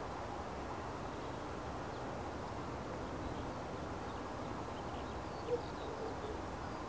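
Steady outdoor rushing noise, with a few faint high bird chirps over the last two seconds.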